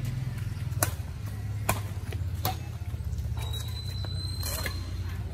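Badminton rackets hitting a shuttlecock in a fast rally: three sharp strikes under a second apart, over a steady low hum.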